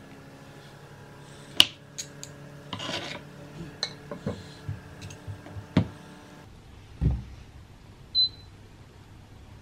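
Knife and fork clicking and scraping on a plastic cutting board as boiled potato is cut into chunks. About seven seconds in comes a dull thud as the pieces are slid off the board into a frying pan, then a sharp clink.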